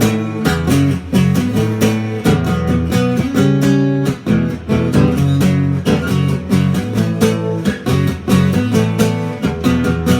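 Guitar strummed in a steady rhythm, chords ringing: an instrumental passage of a song between sung lines.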